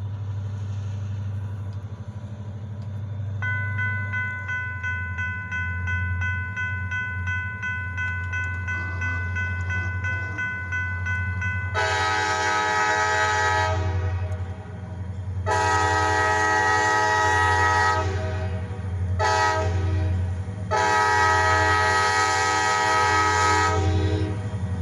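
EMD SD40-2 diesel locomotives running with a steady low engine rumble. A bell rings for several seconds, then the locomotive air horn sounds the grade-crossing signal: long, long, short, long.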